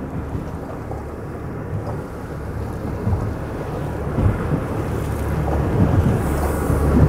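Boat under way on twin OXE 300 hp diesel outboards: a steady low rumble of the engines and the hull running through chop, mixed with wind buffeting the microphone, growing louder over the stretch.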